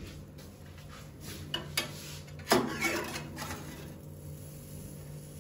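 Metal spatula clinking and scraping against the tray of a small countertop oven: a few light clicks, then one sharper clink about two and a half seconds in, over a low steady hum.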